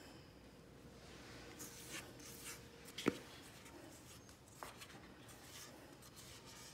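Spatula scraping cake batter out of a stainless steel mixing bowl: faint, repeated scraping strokes, with a sharp clink about three seconds in and a lighter one a second and a half later.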